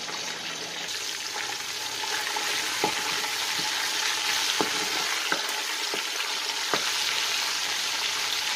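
Hot oil sizzling in a stainless steel stockpot as chunks of salted fish fry, the hiss building over the first couple of seconds. A wooden spatula stirs them, knocking against the pot several times.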